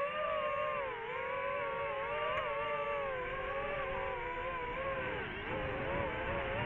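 Small quadcopter drone's propellers humming, the pitch wavering up and down as the motors adjust their speed.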